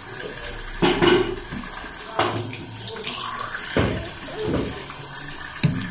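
Tap water running steadily into a bathroom sink, with four brief louder sounds over it.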